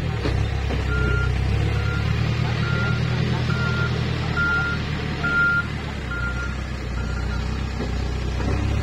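Case 580 backhoe loader's reversing alarm beeping about once a second, eight times, stopping about seven seconds in, over the steady running of its diesel engine as it manoeuvres with a loaded front bucket.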